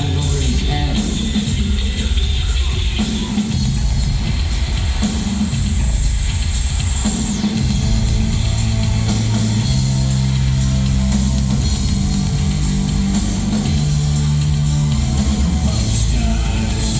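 Loud live electro-industrial music: drums and a heavy synthesizer bass line, with a high synth tone gliding down in pitch from about four to seven seconds in.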